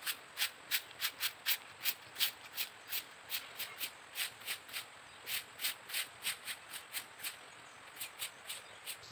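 Stiff-bristled broom sweeping fallen leaves across asphalt in quick, rhythmic swishes, about three strokes a second, with a short pause near the end.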